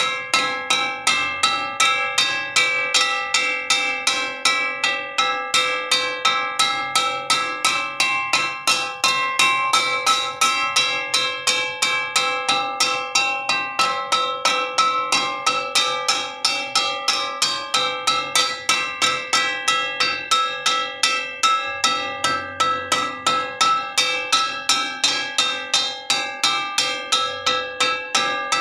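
A metal wok being struck over and over in a steady rhythm, about three blows a second. Each blow rings with a metallic clang that carries over into the next.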